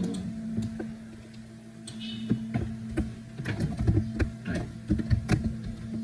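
Typing on a computer keyboard: irregular key clicks, sparse about one to two seconds in and then faster, over a steady low hum.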